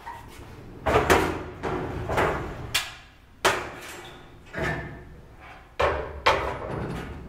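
The steel turntable carriage of a sandblast cabinet, loaded with an engine block, being pushed along its rails into the cabinet: a rumble of the carriage moving, broken by about six sharp metal clanks and bangs.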